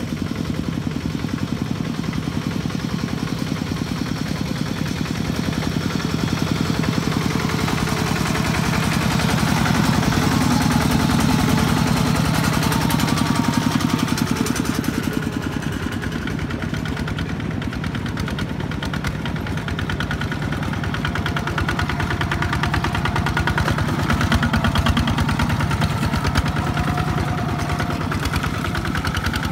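Single-cylinder diesel engine of a two-wheel walking tractor running steadily with a rapid even beat, working under load as it hauls a loaded trailer through mud; it grows louder twice, a few seconds in and again near the end.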